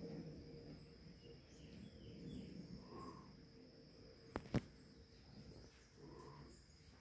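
Quiet garden ambience: a steady high insect trill, faint bird chirps about a second and a half in, and two sharp clicks in quick succession about four and a half seconds in.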